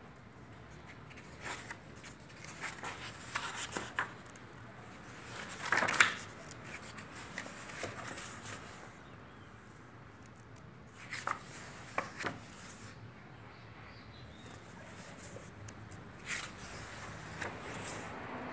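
Paper pages of a large softcover book being turned by hand: scattered rustles and soft flicks, the loudest about six seconds in and two more near twelve seconds.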